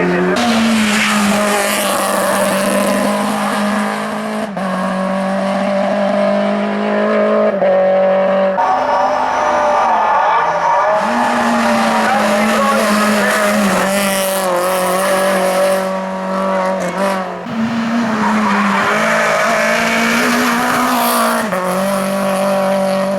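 Hill-climb race car's engine held at high revs, loud throughout, with several brief breaks and small steps in pitch, as at gear changes.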